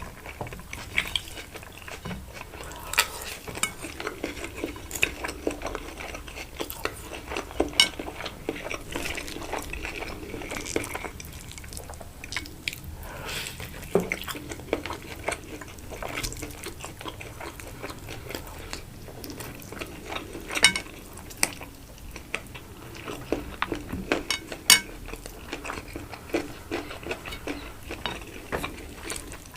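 Close-miked eating of a rice-stuffed chicken and salad: chewing and biting, mixed with frequent clicks of cutlery against a plate and a few sharper clinks.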